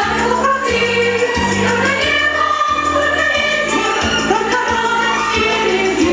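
A sung pop song with choir-like vocals over an instrumental backing, with a bass line that moves to a new note about once a second.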